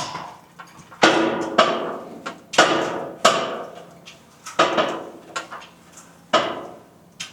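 Gym weights clanking: a series of sharp metal strikes, one every second or so, each ringing out briefly.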